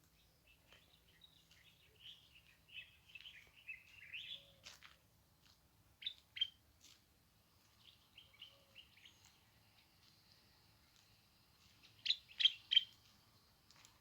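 Small songbirds chirping and twittering: a quick warbling run in the first few seconds, scattered sharp chirps through the middle, and three loud chirps in quick succession near the end.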